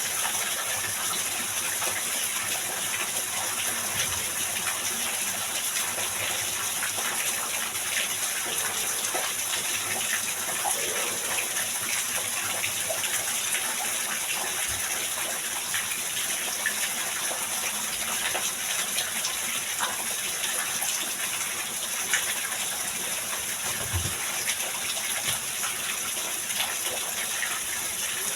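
Heavy rain pouring down steadily as a dense, even hiss of water, with a few faint low knocks scattered through it.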